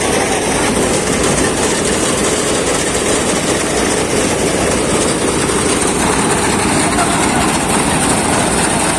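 Motorised paddy threshing machine running steadily as rice is threshed: a loud, continuous mechanical hum and rattle.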